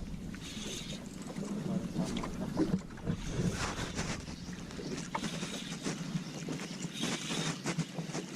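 Small fishing boat at sea: a steady low engine hum with wind on the microphone and water noise, and scattered short clicks and knocks on board.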